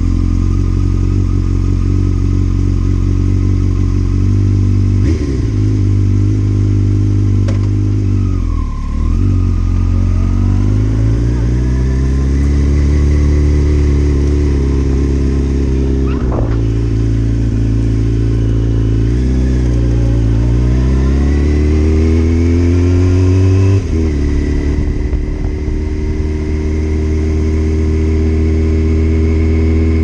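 Sport motorcycle engine heard from a helmet chin mount, running at low revs for the first few seconds and then pulling away. The revs climb and drop back several times as it accelerates up through the gears.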